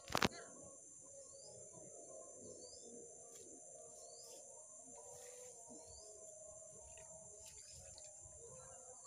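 Steady high-pitched insect drone with a bird repeating a short rising chirp about once a second. A single sharp knock right at the start is the loudest sound.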